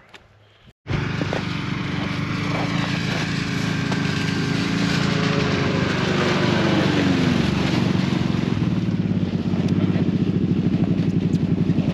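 Ski-Doo snowmobile engine running as the machine comes across the ice towing a sled, its note dropping as it slows, then settling into a rapid, even throb as it pulls up near the end.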